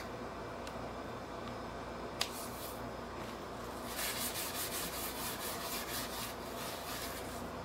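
Hands rubbing together in rapid, even strokes for a few seconds, starting about halfway in, over a steady low room hum. A couple of small clicks come before it.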